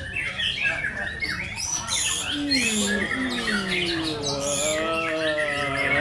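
Many caged white-rumped shamas (murai batu) singing at once in competition: a dense, overlapping jumble of fast whistles and chirps. In the second half, people's long drawn-out calls sound beneath the birdsong.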